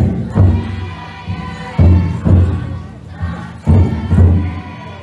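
The big taiko drum inside a futon daiko festival float being struck in pairs of heavy beats, a pair about every two seconds, three pairs in all, with the bearers chanting between the beats.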